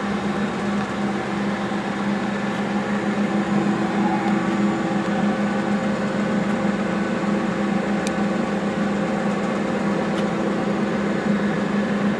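Monarch engine lathe running, its spindle and headstock gearing giving a steady hum with a constant gear whine.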